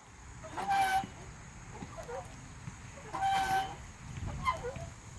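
Playground swing squeaking as it swings back and forth: a high, steady-pitched squeal about a second in and again about three and a half seconds in, with fainter creaks between, in time with each swing.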